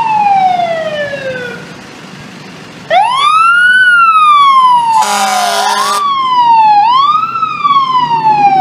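Fire engine siren sounding repeated wails, each rising quickly and then falling slowly, pausing briefly about two seconds in before starting again. About five seconds in, the engine gives a loud horn blast lasting about a second.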